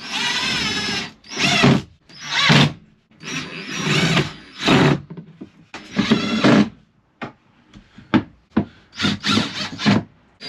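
Power drill run in repeated short bursts while fixing an overhead kitchen cupboard in place. The first burst lasts about a second and the rest are shorter, with a few knocks in between.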